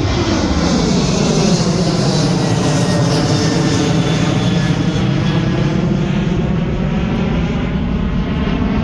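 Jet airliner passing low overhead, its engines loud and steady, with a slowly sweeping whoosh as it goes over.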